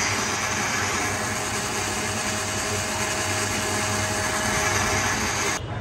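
Electric blender running at full speed, blending mango shake: a steady whir with a faint whine, switched off so that it cuts out suddenly near the end.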